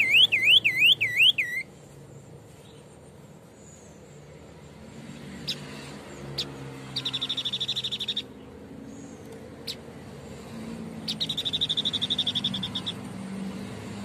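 Caged white-breasted babbler (Tepus dada putih) singing: a fast, up-and-down whistling warble at the start, then a few sharp single notes and two rapid, rattling trills, each a second or two long.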